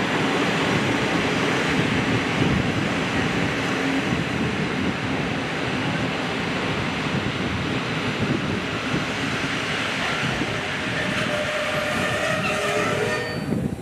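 PKP Intercity passenger coaches rolling along a station platform, with a steady rumble of wheels on rails. Near the end a few high squealing tones rise over the rumble as the train brakes to a stop.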